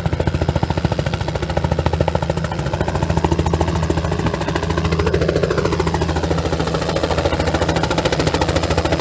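Robinson R66 turbine helicopter flying low overhead: a loud, fast, steady chop from the rotor blades over a steady low drone. The pitch rises and falls briefly about halfway through.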